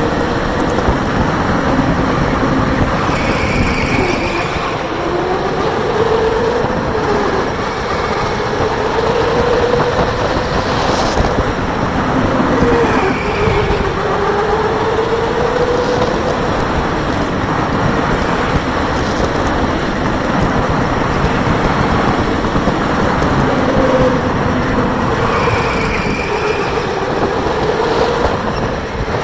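Onboard an electric go-kart at speed: the motor's whine rises and falls as the driver accelerates and lifts through the corners, over a steady rumble of the kart running on the track. A few brief high squeaks come through now and then.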